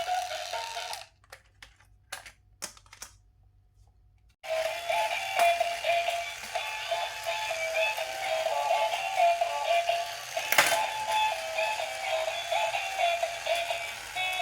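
A simple electronic beeping melody, one note line stepping up and down. It stops about a second in, leaving a few scattered clicks, and starts again about four seconds later. A sharp click follows several seconds on.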